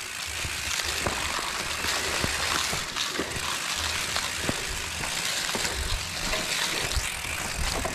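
Mountain bike rolling down a rough, rutted dirt trail: a steady rushing noise from tyres and air, with low rumbles and scattered knocks and rattles as the bike goes over bumps.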